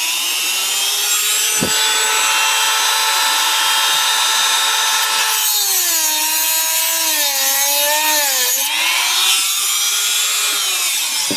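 Dremel rotary tool with a cutoff disc grinding a new slot into a stripped screw head, running with a high whine. Its pitch dips and wavers for a few seconds in the middle as the disc bites under load, then recovers, and the motor winds down near the end.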